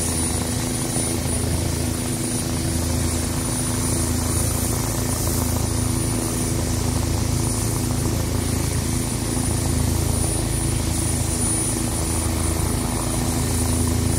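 OH-58D Kiowa Warrior scout helicopters running: a steady low rotor beat with a constant turbine hum, as one comes in to land.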